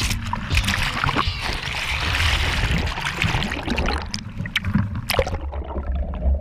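Lake water rushing and splashing over an action camera on the deck of a heeling Sunfish sailboat. Near the end the sound turns muffled, with bubbling, as the camera goes under the water.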